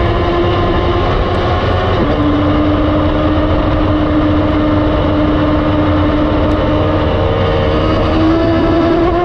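Onboard sound of a 1000 cc sport motorcycle engine at speed, heavy with wind rush. The engine note drops about two seconds in, holds steady through a long lean, then rises near the end as the bike gets back on the throttle.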